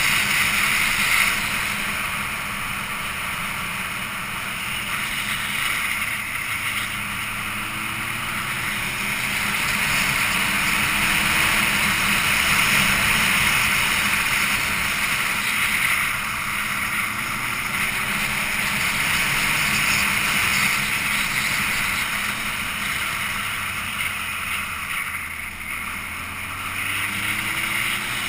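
Wind rushing over the microphone of a camera on a moving vehicle, a steady loud rush, with the engine faintly underneath rising in pitch three times as it pulls up through the revs.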